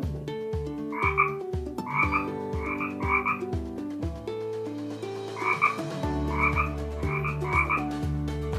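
Frog croaking: short croaks in quick clusters of two or three, repeating about once a second over a deeper pulsing background.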